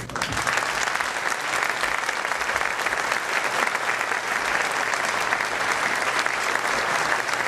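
A large audience applauding, starting abruptly and keeping up a steady, dense clapping.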